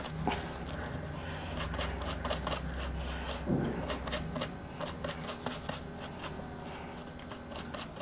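Irregular small clicks and rubbing from a reballed BGA chip being handled and cleaned by hand, over a low steady hum.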